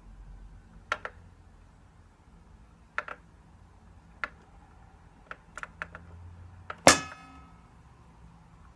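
Mechanical clicks and knocks from a Bush record player's automatic mechanism: single clicks a couple of seconds apart, a quick cluster of three, then a louder clunk with a brief metallic ring about seven seconds in, over a faint low hum.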